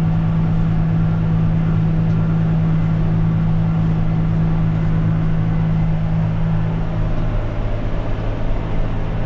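Tractor engine and PTO-driven pull-type mower conditioner running steadily under load while cutting standing rye, heard from inside the tractor cab: an even, loud mechanical hum. The higher part of the hum drops away about seven seconds in.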